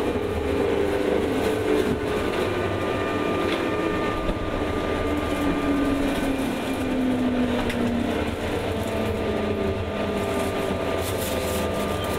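JR 201 series electric train running, heard from inside motor car MoHa 201-199: steady rumble of wheels on rail under a whine from the running gear. The whine falls in pitch over the first several seconds, then a higher whine comes in near the end.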